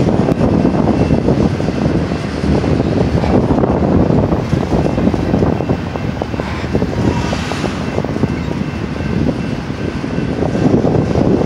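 Double-stack intermodal freight train's well cars rolling past: a steady rumble with a dense clatter of steel wheels on the rails, easing a little in the middle.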